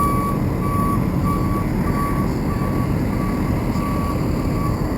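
Heavy truck's backup alarm beeping about every 0.6 seconds, growing fainter and stopping a little before the end, over the steady low rumble of the diesel engine running.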